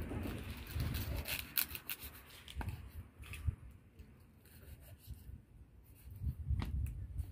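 Knife cutting and scraping through a tuna's skin and flesh behind the head, in irregular strokes with scattered sharp clicks. A low rumble swells about a second in and again near the end.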